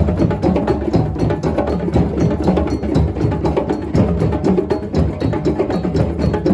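Percussion music: a dense, steady run of strikes over low pitched tones.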